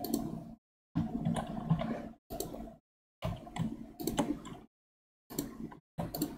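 Computer keyboard keys and mouse buttons clicking in short clusters, the sound cutting to dead silence between clusters.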